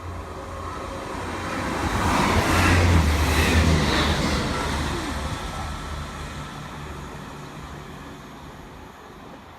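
Diesel train passing through the station, its engine hum and wheel noise building to a peak about three seconds in and then slowly fading as it moves away.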